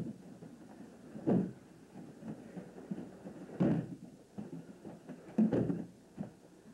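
Bodies thudding onto padded mats as aikido ukes take breakfalls from throws: three loud thuds about two seconds apart, with softer knocks and footfalls on the mat between them.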